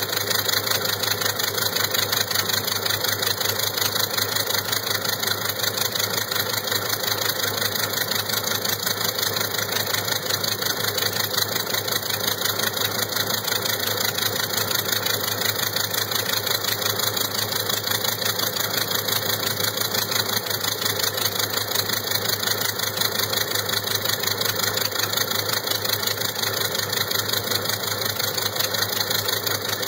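A DC-4's number 2 engine, a Pratt & Whitney R-2000 radial, running steadily while it is burped to clear oil.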